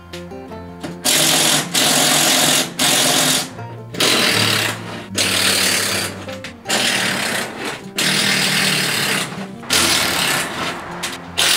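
A power tool run in repeated short bursts, each about half a second to a second long, while the welded-on roof of a steel shed frame is worked loose. Background music plays underneath.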